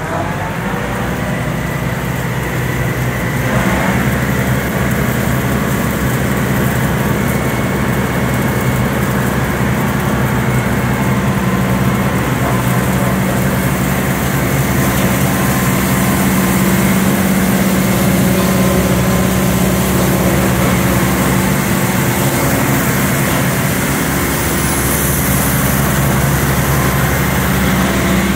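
Tractor engine and a Kuhn Primor 3560 straw chopper running together: a steady, loud mechanical drone that builds over the first few seconds and then holds even.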